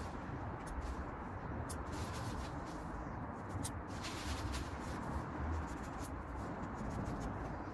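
Hand shears snipping ornamental grass and a plastic bag rustling: a few short sharp clicks over a steady low rumble and hiss.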